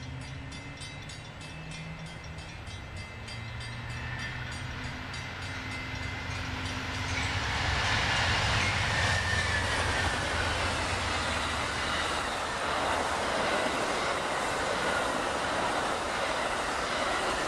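Amtrak Empire Builder approaching and passing behind two GE P42DC diesel locomotives, their engines humming as they come near. The train then runs by at speed, and the steel wheels of the double-deck Superliner cars rumble and clatter on the rails, louder from about halfway through.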